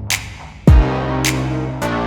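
Electronic background music: one deep kick drum falling in pitch, sharp snare hits and held synth bass notes.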